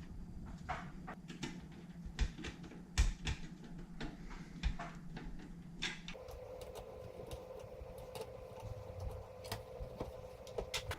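Scattered light clicks and knocks as a GT 1030 graphics card and metal PC case parts are handled and fitted. A faint steady hum comes in about six seconds in.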